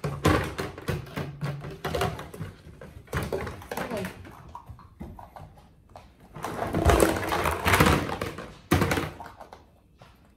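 Hand-washing of a bottle: irregular knocks and clatter, with rubbing, scrubbing noise. The scrubbing is loudest for two or three seconds starting about six seconds in.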